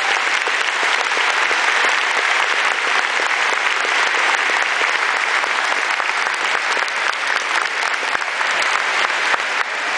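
A large audience applauding steadily, a dense mass of clapping with no pause.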